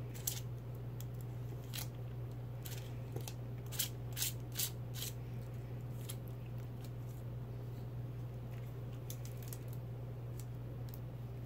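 Metal palette knife scraping texture paste across a plastic stencil: a string of short scrapes and clicks in the first five seconds, a few fainter ones near the end, over a steady low hum.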